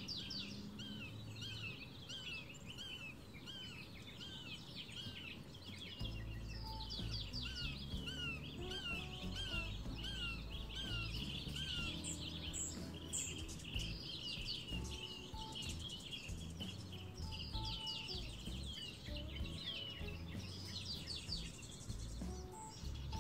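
Many small birds chirping busily, with a run of repeated down-slurred whistled notes in the first half. Soft background music comes in about six seconds in and continues under the birdsong.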